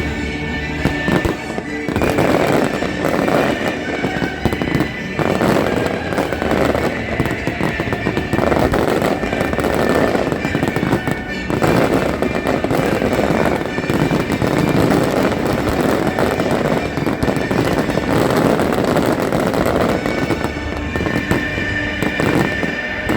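Fireworks show: a dense, continuous run of bangs and crackles, starting about two seconds in, with music playing underneath that stands out more at the start and near the end.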